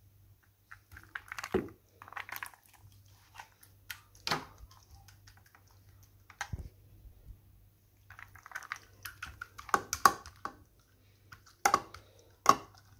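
Wet lentil and Quorn mince filling being scooped with a plastic cup onto lasagna sheets in a baking dish and spread out: soft squelching and scraping with scattered sharp clicks and knocks, the loudest near the end.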